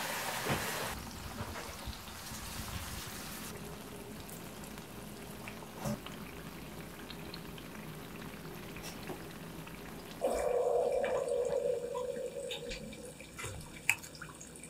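Spot prawn heads deep-frying in hot oil at about 330°F, the oil sizzling steadily, with a few light clicks. About ten seconds in the sizzle turns abruptly louder for a few seconds.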